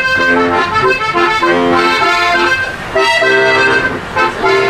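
Button accordion playing a traditional tune in short, repeated chords.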